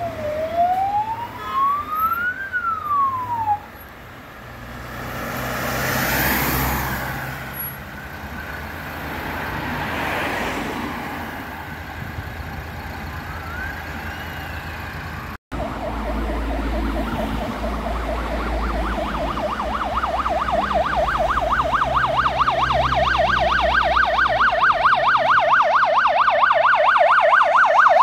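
Ambulance sirens. First a slow rising and falling wail, with cars passing by. After a cut, a fast yelp warbling up and down several times a second, growing louder as the ambulance approaches.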